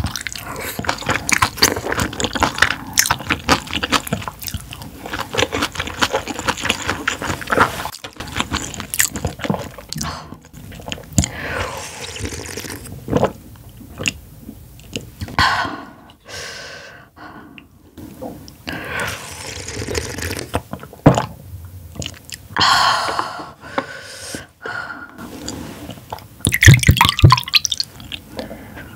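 Close-miked wet chewing of soft, chewy squid innards, with dense smacking clicks for the first several seconds, a few pauses in the middle, and loud wet chewing again near the end.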